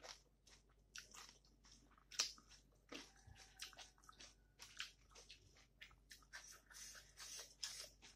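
Faint close-up mouth sounds of a person chewing a mouthful of rice, potato curry and greens: irregular soft smacks and crunches, a few each second.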